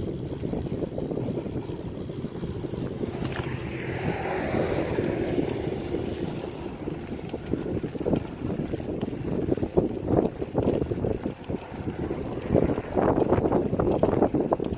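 Wind buffeting the microphone over the low rumble of a recumbent cycle rolling along a concrete path, the gusts and jolts growing choppier in the second half.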